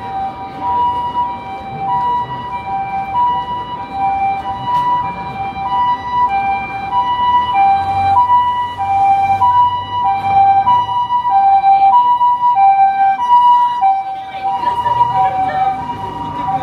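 Japanese ambulance siren sounding its two-tone "pee-po" call, a high and a low tone alternating about every half second. It grows louder toward the middle and fades near the end as the vehicle passes.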